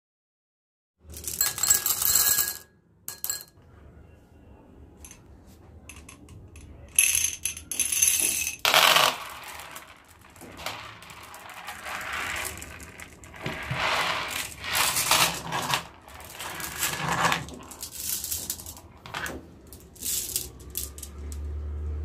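Glass marbles clinking and clattering against each other in irregular bursts of quick clicks.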